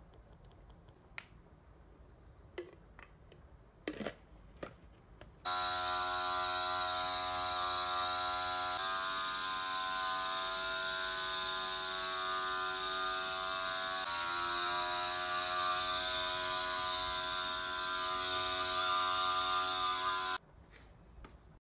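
Handheld electric atomizer spray gun running and misting disinfectant: a steady motor whine over a hiss of spray, starting suddenly about five seconds in, its pitch shifting slightly twice, and cutting off suddenly near the end. Before it, a few light clicks and knocks of plastic bottle and jug handling.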